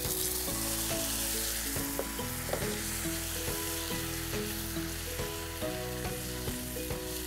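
Ground onion paste frying in hot sesame oil in a cast-iron skillet, a steady loud sizzle that starts as the paste goes in and is kept up by stirring. Background music plays over it.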